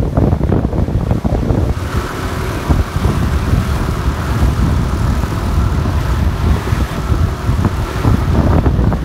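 Heavy wind buffeting the microphone of a phone held while riding a motorcycle, a loud steady rumble with the motorcycle running underneath.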